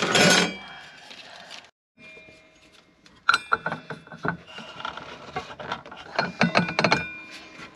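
Metal clicks and clinks as a Trend carbide blade is fitted to a Ryobi brushless circular saw and the arbor washer and bolt are handled and tightened, with the steel blade ringing briefly after several of the knocks.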